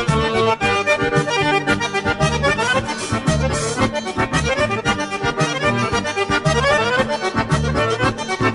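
Background music led by accordion, a lively traditional tune with a steady bass beat and quick runs of notes.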